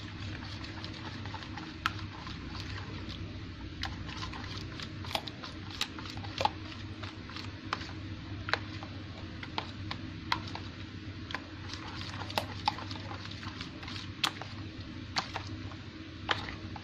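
Slime mixture of glue and lotion being stirred in a bowl as borax activator is worked in: irregular light clicks and taps of the stirring utensil against the bowl, over a steady low hum.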